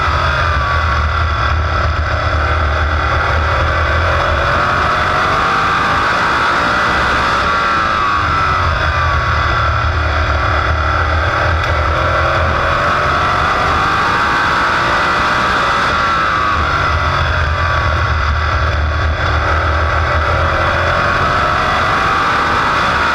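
Big-block Chevrolet V8 of an ISMA supermodified racing at full song, heard from the cockpit. Its pitch sags and climbs again three times as the car comes off the throttle for the turns and accelerates down the straights.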